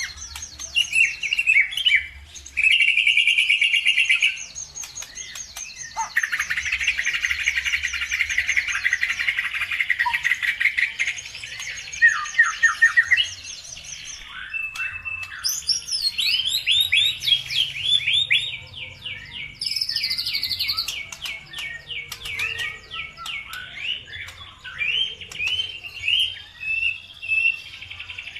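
Songbirds singing busily: several birds chirp and trill at once, with rapid repeated notes and short whistled phrases overlapping throughout. This is a 'pancingan' birdsong lure, played to set caged birds singing.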